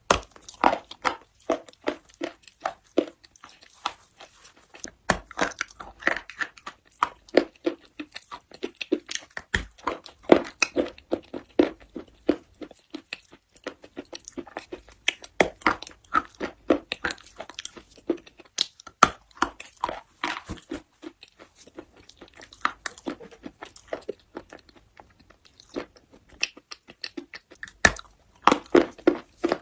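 Close-miked biting and chewing of crunchy slate: steady irregular crunching and grinding, with a sharp louder snap every few seconds as a fresh piece is bitten off.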